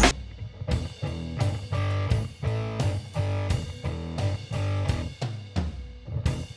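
Background music: a plucked guitar over a steady drum beat.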